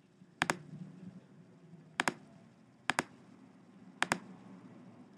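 Computer mouse button clicking four times, one to two seconds apart. Each click is a quick two-part snap of press and release.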